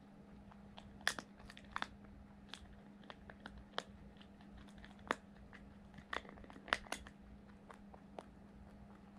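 Rabbit gnawing and crunching a dried papaya stem: irregular, sharp crunches and snaps, a few louder ones among many soft ones, over a faint steady hum.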